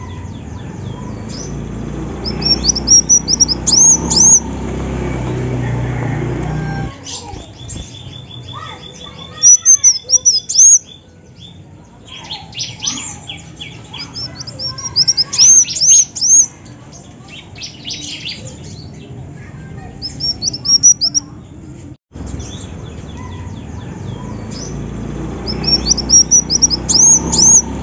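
Female kolibri wulung sunbird calling: bursts of high, sharp chirps that each rise and hook over, several times with pauses between. In the middle there is a fast, even run of ticks.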